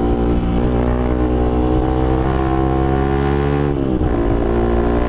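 Bajaj Pulsar RS200's single-cylinder engine pulling under acceleration while riding, its pitch climbing steadily, then dropping sharply near the end at an upshift and starting to climb again.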